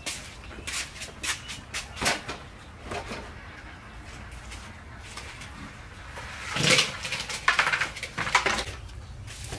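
A plastic bucket being carried and set down with a few knocks, then a bucket of fish with water tipped out into a metal colander, giving a short rush of splashing and a flurry of slaps and clatters.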